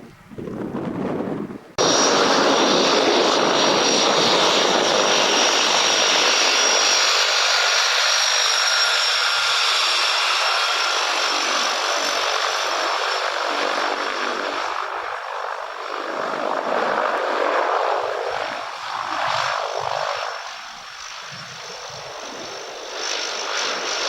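Aircraft engine noise that comes in abruptly and loud about two seconds in, with a thin steady high whine over it, then slowly fades and wavers toward the end. Before it, wind buffets the microphone.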